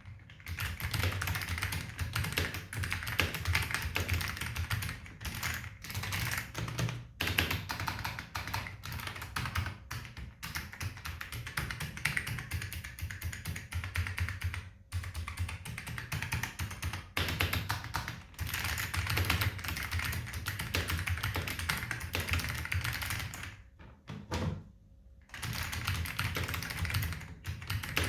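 Fast continuous typing on a vintage Ortek MCK-101FX mechanical keyboard with lubed ALPS white switches: dense clicking keystrokes with a few brief pauses, the longest about 24 seconds in.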